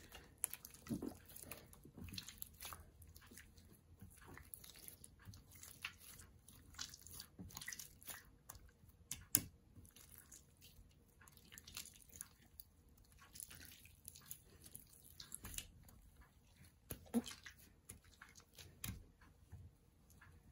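Hands kneading and stretching neon pink slime that clear glue has made stiff: faint, irregular sticky clicks, pops and squelches, a couple of them louder.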